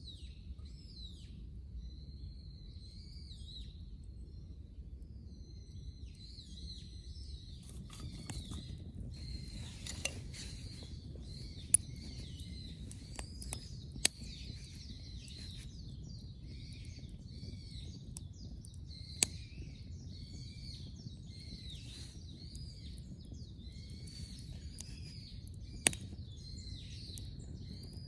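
Outdoor ambience: high-pitched chirping calls repeating steadily throughout, with a few sharp cracks or pops at irregular intervals over a low steady rumble.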